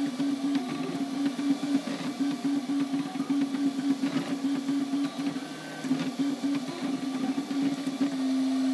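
MakerBot Replicator 3D printer printing, its stepper motors humming in a tone that stops and shifts pitch with each short move of the print head. Near the end it holds one steady note.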